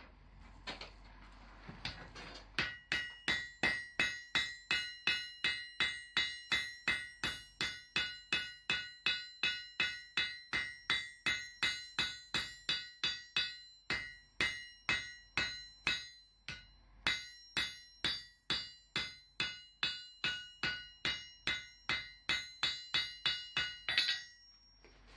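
Steady run of hammer blows on an anvil, about two and a half a second, each leaving a bright metallic ring, as steel for a wooden plane's blade is forged. The blows pause briefly twice around the middle and stop shortly before the end.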